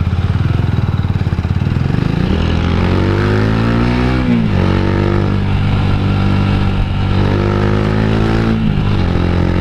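Rusi Classic 250 motorcycle engine pulling away from a stop and accelerating. The revs climb and fall back twice at gear changes.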